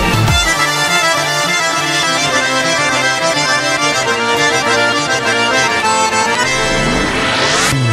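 Accordion-led traditional dance music, dense and steady, with a bass line underneath and a sweep rising sharply in pitch near the end.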